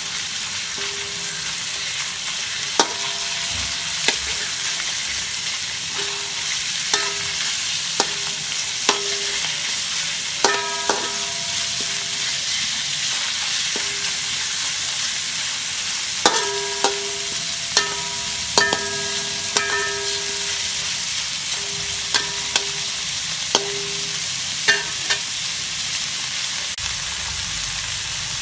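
Pork and ginger sizzling in a hot wok as they are stir-fried with a metal spatula. The spatula strikes the wok at irregular intervals, giving short ringing clanks over the steady sizzle.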